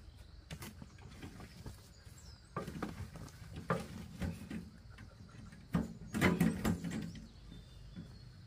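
A wheelbarrow being tipped and emptied: clumps of dark dirt slide out and patter onto the ground, with knocks from the barrow's tray. The clatter is loudest about six seconds in.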